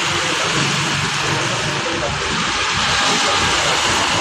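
Heavy rain falling in a steady hiss, with the low rumble of street traffic engines underneath.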